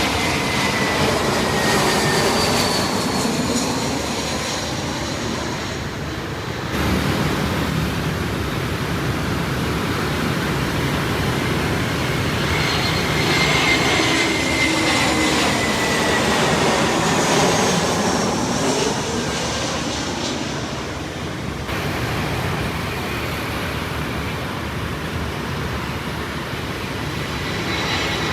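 Arriving jet airliners running their engines: a steady rumble with a high whine that slowly falls in pitch. The sound changes abruptly twice, as one aircraft gives way to the next.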